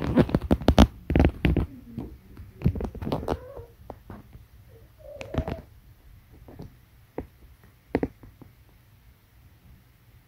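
Young female British shorthair cat in heat: rustling and soft knocks as she rolls and rubs on the carpet against a chair leg, loudest in the first two seconds, then one short low call about five seconds in. A few faint clicks follow.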